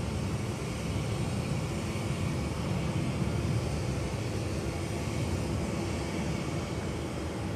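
Airport apron ambience: a steady low rumble of distant jet aircraft engines, with a faint steady whine above it.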